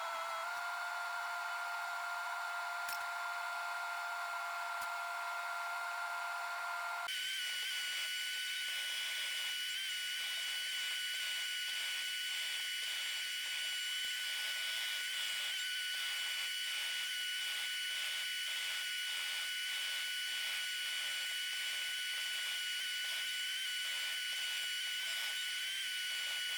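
Steady high-pitched mechanical whine that jumps abruptly to a higher pitch about seven seconds in.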